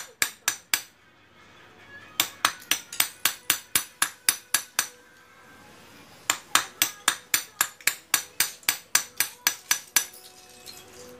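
Small hammer tapping a ring on a steel ring mandrel to set a polished agate, in quick runs of light, ringing metal taps about four or five a second. The runs are broken by pauses of a second or more, and the taps fade out near the end.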